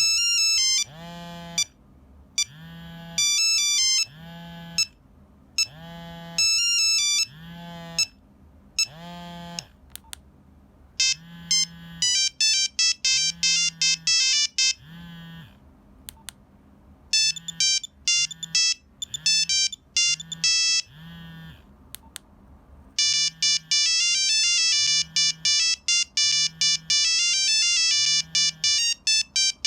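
Nokia 3395 mobile phone playing monophonic beeping ringtone melodies, one tune after another with short breaks between them. A low buzz pulses along about once a second under the melodies.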